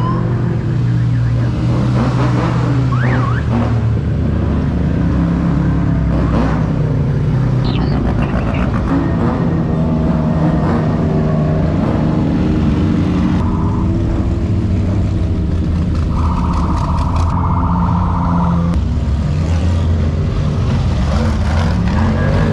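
Engines of off-road race vehicles, UTVs and a desert buggy, running as they drive past one after another at parade pace, their pitch rising and falling as they rev. About two-thirds of the way through, a buzzing horn-like tone sounds for about two seconds.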